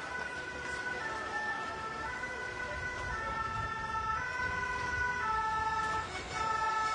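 Emergency vehicle's French two-tone siren, alternating between a higher and a lower note about once a second and getting louder near the end as it approaches.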